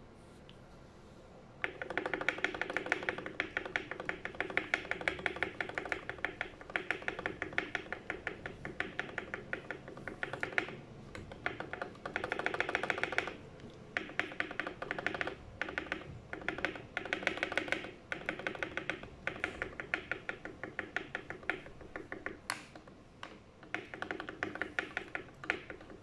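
Spacebar of a foam-modded TM680 mechanical keyboard with Gateron Phantom Yellow switches and lubed stock stabilizers, pressed rapidly over and over with a creamy sound. The presses start about a second and a half in and come in runs of a few seconds with short pauses between.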